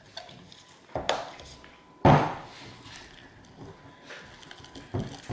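Silicone spatula stirring sticky slime in a ceramic bowl, with a few sharp knocks against the bowl, the loudest about two seconds in.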